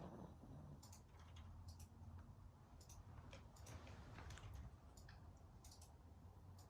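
Faint, slow snoring from a sleeping pet, with light irregular clicks over it.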